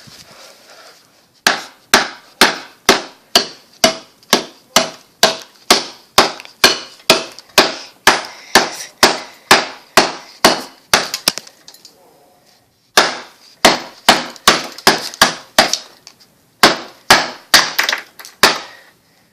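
A hammer striking a block of hard ice over and over, chipping at it to free a toy car frozen inside. The strikes are sharp and come about two a second, in two long runs with a short pause between them.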